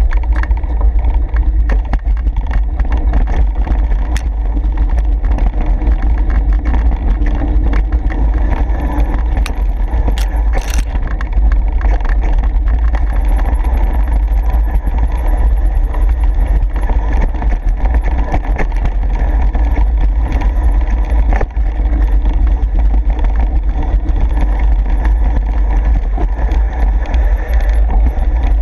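Mountain bike ridden along a rough dirt singletrack: a loud, steady low rumble with constant rattling and clicking from the bike over the bumpy ground.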